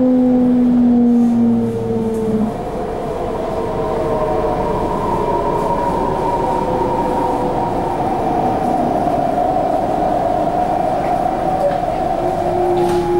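Interior sound of an MTR C-Train electric multiple unit slowing down: the traction motors' whine falls in pitch and dies away about two and a half seconds in. After that comes steady rumbling of wheels on rail, with a new steady hum near the end.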